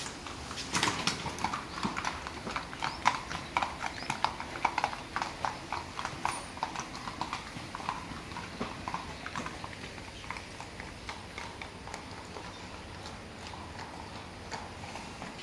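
Horses' hooves clip-clopping on a concrete floor as they walk. A quick, dense run of hoof strikes fills the first part and thins out to scattered steps after about ten seconds.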